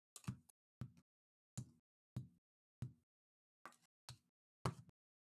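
Trading cards being flipped through by hand: a short rustle or snap as each card slides off the front of the stack, about eight times, with dead silence between.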